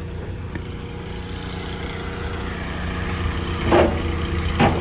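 Diesel truck engine idling steadily, with two short sharp sounds near the end.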